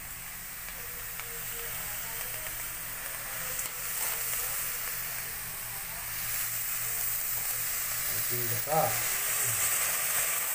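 Crabs sizzling in a steel cooking pot, a steady hiss. A short, louder sound rising in pitch comes about eight and a half seconds in.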